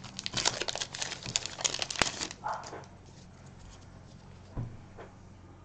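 Plastic-foil wrapper of a Magic: The Gathering set booster pack being torn open and crinkled by hand: a quick run of crackles and rustles with one sharp snap about two seconds in. After that, quieter handling with a single soft knock a little after four and a half seconds.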